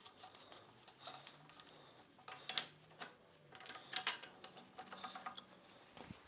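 Scattered light metallic clicks and clinks of a wrench working the recessed spring-tension nuts on a power hammer.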